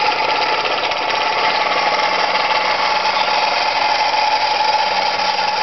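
Small David Auld model marine steam engine running at a steady speed, a fast, even mechanical chatter with a steady hum.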